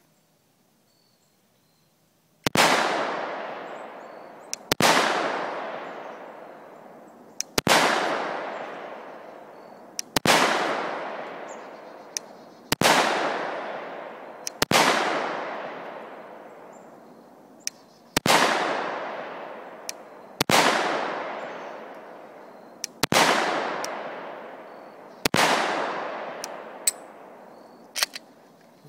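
Ten pistol shots from a 10mm Glock built on a G21SF frame with a Lone Wolf G20LS long slide and 6-inch barrel, fired slowly about two to three seconds apart, starting about two and a half seconds in. Each shot is followed by a long echo fading over about two seconds, and a few fainter sharp clicks fall between the shots.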